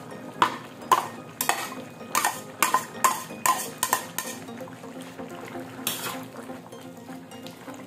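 A metal spatula clinking and scraping against a ceramic plate while pushing chopped fried chicken liver off it into a wok. The sharp clinks come about two a second for four seconds, then a single one near six seconds.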